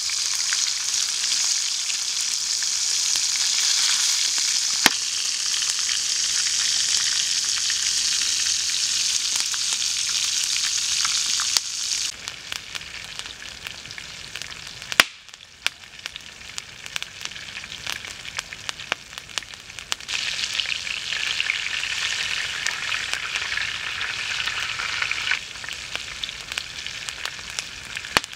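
Breaded food shallow-frying in hot oil in a pan over a wood fire: a steady sizzle with scattered small pops and clicks. The sizzle drops about twelve seconds in, swells again later, and eases near the end.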